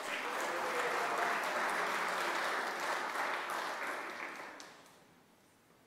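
Audience applauding, steady at first, then fading out and stopping about five seconds in.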